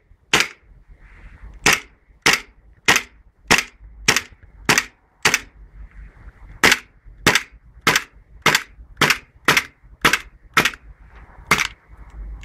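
WE M.E.U. 1911 green-gas blowback airsoft pistol fired empty with no BBs: about seventeen sharp shots, each with the slide cycling, at a steady pace of nearly two a second with one longer pause about halfway. The magazine's gas is being used up.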